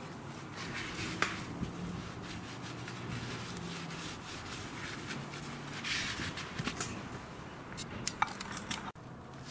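Cloth rag rubbing as an oily motorcycle oil drain plug is wiped clean by hand, with a few light clicks.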